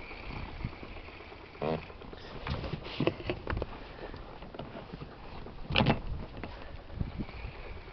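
Spinning rod and reel being handled in an inflatable boat: a short whirr of the reel and several clicks and knocks, the loudest about six seconds in.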